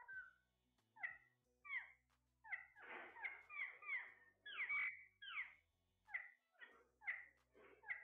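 Caged Alexandrine parakeets calling: short squawks that slide downward in pitch, repeated about every half-second, crowding into a busier run of overlapping calls near the middle.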